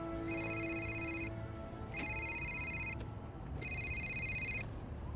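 Mobile phone ringtone: an electronic ring tone repeating about once every 1.7 seconds, each ring about a second long, four rings in all.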